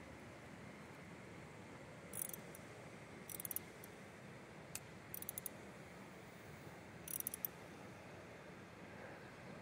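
Small metal hand tools clicking and ticking against a motorcycle clutch cable and its repair-kit fittings, in a few short clusters of sharp clicks.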